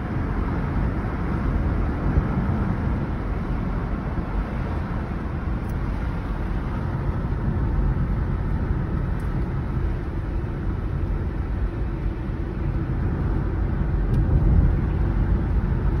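A car driving along a road, heard from inside the cabin: a steady low rumble of road and wind noise that cuts off abruptly at the end.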